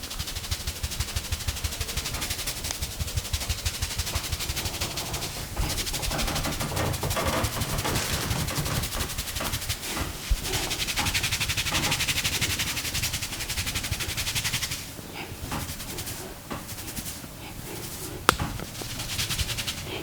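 Hands rubbing a person's scalp and hair fast during an Indian head massage: a quick, even run of strokes with a hissing rustle of hair. It eases off to softer, sparser strokes after about fifteen seconds, with one sharp click near the end.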